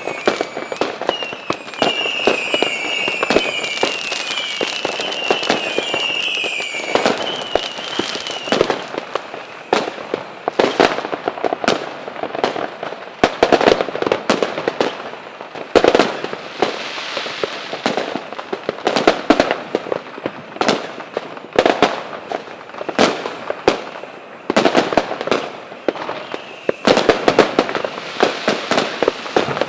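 Fireworks and firecrackers going off in rapid, irregular bangs and crackles. For the first several seconds a high warbling whistle rises and falls over and over above them, and it comes back faintly near the end.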